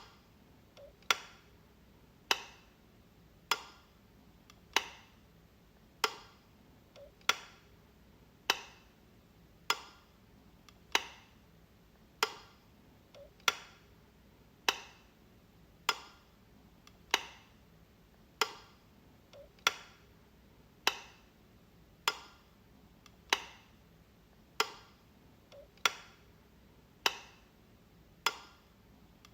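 Light switch being flicked over and over: a sharp click about every 1.2 seconds in an even rhythm. A few of the clicks come with a faint softer click just before them.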